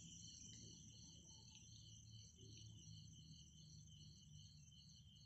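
Near silence with faint crickets chirping, a high pulsing chirp about three times a second over steady high trilling, and a faint low hum beneath.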